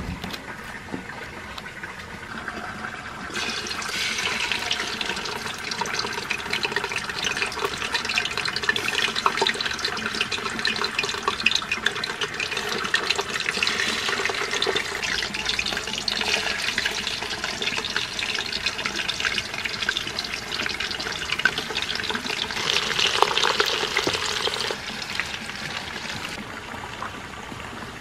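Water pouring and splashing into a wok over whole scored tilapia: a dense, crackly rush of liquid that starts abruptly a few seconds in and stops shortly before the end.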